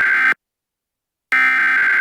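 Emergency Alert System SAME header tones: harsh, buzzy digital data bursts just under a second long, separated by about a second of silence. One burst ends about a third of a second in, and the next starts just after a second in. These coded bursts announce the start of an alert.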